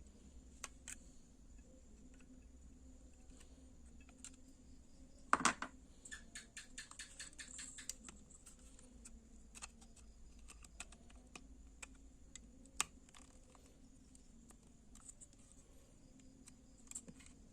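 Light clicks and taps of small plastic and metal parts of an LED bulb being handled and fitted together, with one sharper click about five seconds in followed by a quick run of ticks.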